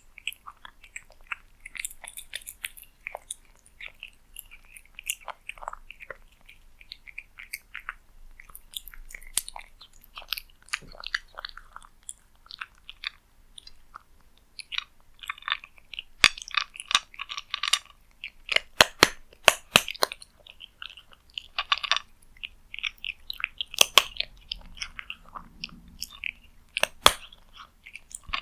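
A cat eating cat food close to the microphone: chewing and biting in a quick, irregular run of clicks and smacks, busiest around the middle and again near the end.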